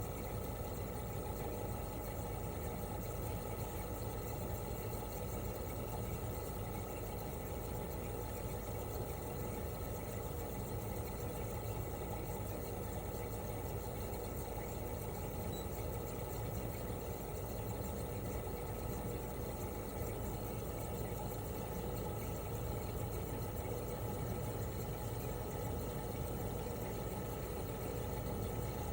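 Toshiba RAS-285BAD mini-split outdoor unit, with its twin rotary compressor and propeller fan, running steadily in cooling mode: an even hum with several held tones over a steady rush of noise, with no change in speed.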